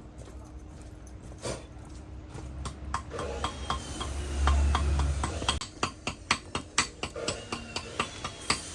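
Hand tool knocking on metal in a steady run of sharp taps, about two or three a second, settling into an even rhythm about halfway through after a low rumble.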